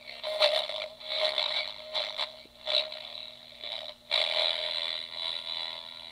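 Music received over an infrared laser link and played through the kit's small, cheap speaker, garbled and distorted, cutting in and out in short bursts before running on more steadily for the last two seconds.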